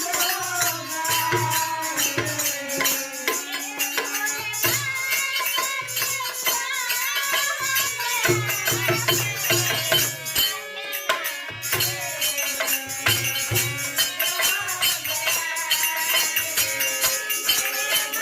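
Devotional bhajan-kirtan: a voice singing a wavering melody over a steady beat of rattling, jingling hand percussion and low drum strokes.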